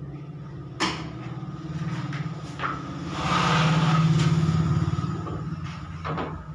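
A motor vehicle's engine running, swelling to its loudest about three to five seconds in and then easing off, with a sharp knock about a second in.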